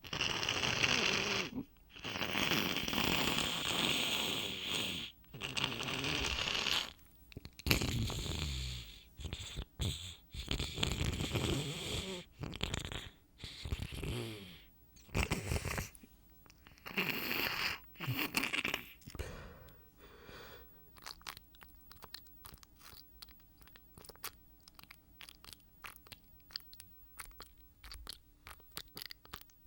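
A person's wet nose blowing and sniffling in repeated bursts of a second or two, some with a low, falling pitch. After about twenty seconds these give way to quieter, rapid soft clicks and crackles.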